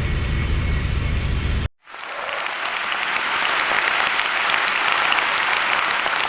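A pickup truck engine runs with a low, steady rumble and stops abruptly about a second and a half in. After a short silence, a steady crackling hiss fills the rest.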